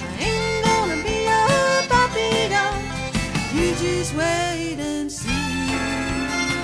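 Instrumental break in a country song: a lead melody with bending notes over a steady band backing.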